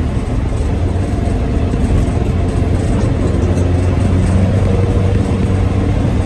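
Volkswagen bus engine and road noise heard from inside the cab, the bus driving along in fourth gear with the engine running steadily under load.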